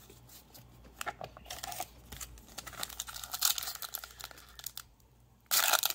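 Foil trading-card booster pack and cards being handled, with scattered crinkling and rustling. A loud, dense rip near the end as the foil wrapper is torn open.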